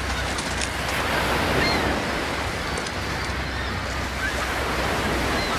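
Seawater churning and splashing against the side of a boat, a steady wash with wind rumbling on the microphone.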